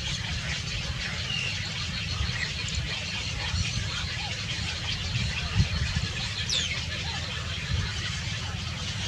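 Birds chirping in short high notes over a steady low rumble, with one high whistle falling in pitch about six and a half seconds in.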